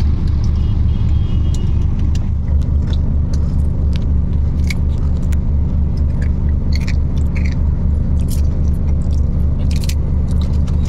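Car engine idling, heard from inside the cabin: a steady low hum with an even pulse, with scattered small clicks and rattles over it.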